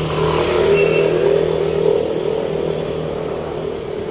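A motor vehicle's engine running close by, a little louder in the first two seconds and easing off after.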